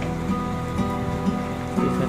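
Instrumental background music with held notes.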